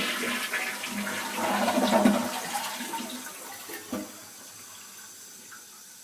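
Toto toilet flushing with a freshly replaced flapper: water rushes loudly for about three seconds, then dies away. A short knock comes about four seconds in, and a quieter steady hiss of the tank refilling follows.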